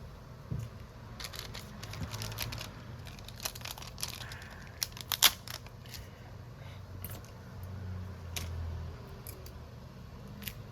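Scattered small clicks, taps and scrapes of hand tools and phone parts being handled during a phone screen repair, with a cluster of sharp clicks about five seconds in.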